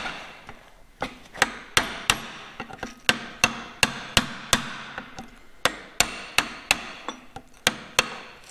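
A hammer striking a soft brass punch in a steady run of sharp metallic blows, about two to three a second, each ringing briefly: driving the bearing out of a Centurion Mk13 tank gearbox's output flange.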